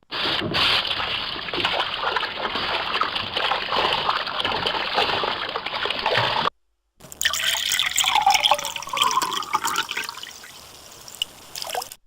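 Two water sounds in turn: a steady trickle of running water that cuts off suddenly after about six and a half seconds, then, after a brief gap, uneven gurgling, bubbling water that fades down near the end.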